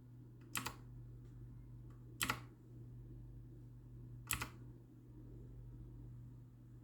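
Havit Gamenote mechanical gaming keyboard keys pressed one at a time: three separate keystrokes about two seconds apart, each a quick double click of press and release.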